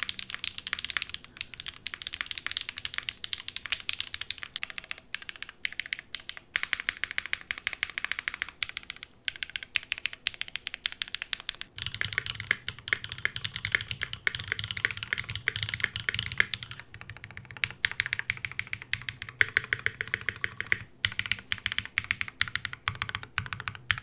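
Typing on mechanical keyboards with stock, unlubed Invokeys Matcha Latte long-pole switches: first a Gingko with FR4 plate and case foam, then from about halfway an Iron180 with brass plate and brass bottom and no foam, whose keystrokes carry much more low end. The switches sound smooth, with no pinging and nothing plasticky.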